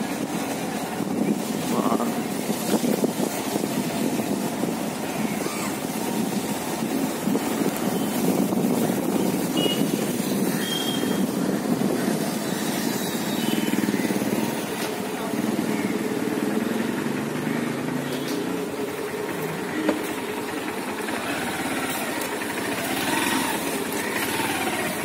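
Motorcycle engine running steadily while riding along a street, with road noise.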